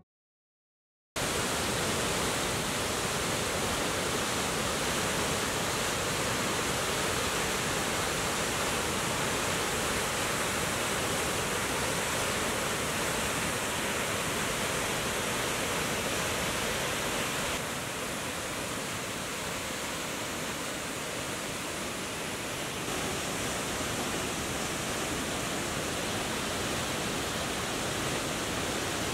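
Waterfall: a steady, even rush of falling water that starts about a second in.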